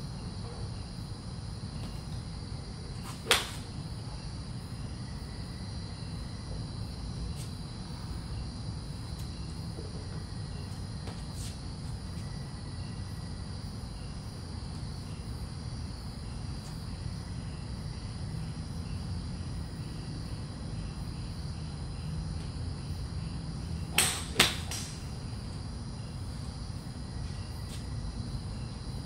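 Golf club striking balls off driving-range mats: one sharp crack about three seconds in and a pair of cracks near the end. Under them run a steady low hum and a steady high drone like night insects.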